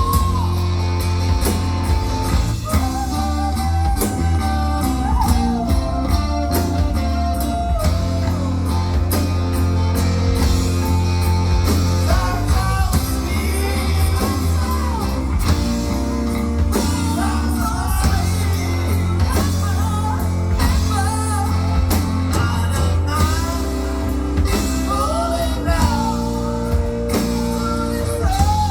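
Live band music: steady bass and guitar chords under a gliding lead melody line.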